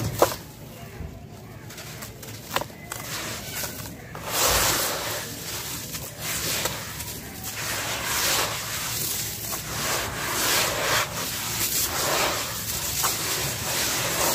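Hands crushing and kneading wet, gritty sand-and-dirt paste in a plastic tub. A couple of sharp crunches come at first, then from about four seconds in a continuous gritty squelching and scraping that swells and eases with each stroke.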